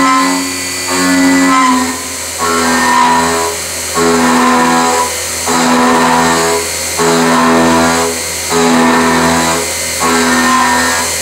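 CNC milling machine driving a high-speed-steel end mill along a trochoidal path through a metal plate. The cutting tone is a set of steady pitched tones that swells and drops back in a regular cycle about every second and a half, as the cutter moves into and out of the cut on each loop.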